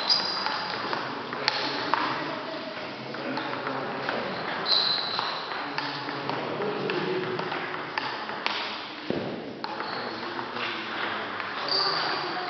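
Table tennis balls clicking off bats and the table, with scattered sharp taps and a few short high squeaks, over the steady background hum of a large sports hall.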